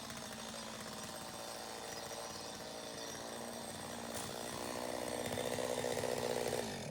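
Chainsaw running while cutting branches of a dead kōwhai tree; the engine note climbs and gets louder from about four seconds in, as under load.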